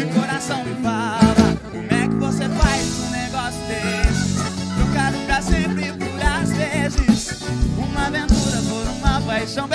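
Live sertanejo band music, a pagode-style groove: drums and percussion keep a steady beat under bass, guitars, keyboard and accordion, with a wavering lead melody on top.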